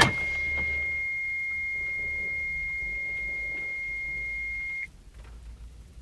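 Mitsubishi Galant VR-4's dashboard warning buzzer sounding one steady high beep just after the ignition is switched on, cutting off sharply about five seconds in. A sharp click right at the start is the loudest moment.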